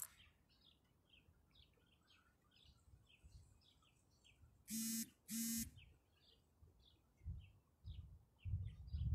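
A crow guarding its nest caws twice in quick succession about five seconds in, loud against a steady run of small-bird chirping, about two to three high chirps a second. A few low thumps near the end.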